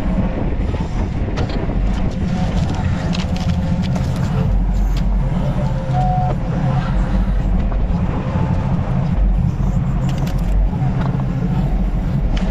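Yanmar ViO25 mini excavator's three-cylinder diesel engine running steadily while it works, with scattered short clicks and knocks over it.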